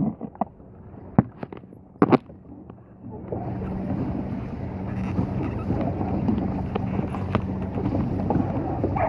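Wind rushing over the microphone out on open water, coming up about three seconds in and then running steadily. Before it, a couple of sharp knocks, about one and two seconds in.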